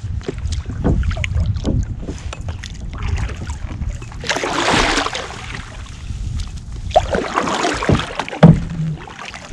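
Kayak on the water: a low rumble with small knocks against the hull, and two rushes of splashing water of about a second each, one midway and one near the end. A sharp knock sounds near the end.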